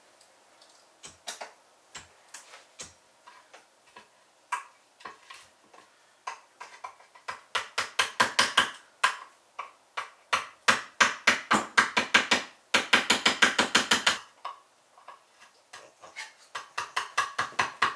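Hand tool working a piece of wood in short scraping strokes: a few scattered strokes at first, then quick runs of about five strokes a second from about seven seconds in, thinning out again near the end.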